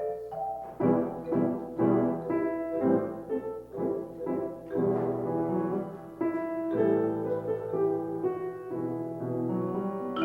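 Instrumental music on piano: struck notes and chords, a few per second, each ringing and fading, with no singing.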